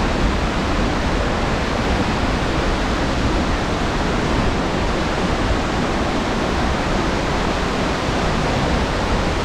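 Large waterfall close at hand, a dense, steady rush of falling water without breaks.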